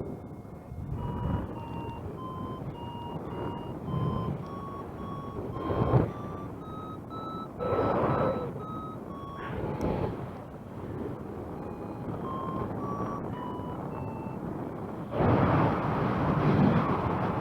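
Flight variometer beeping in short, evenly spaced tones, its pitch stepping up and then back down as the climb in the lift strengthens and fades, over rushing wind on the microphone. A loud gust of wind comes near the end.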